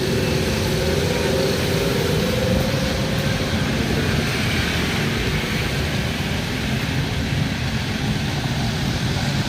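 Motor vehicles running past: a steady engine rumble with road noise. A faint wavering pitched sound fades out about three seconds in.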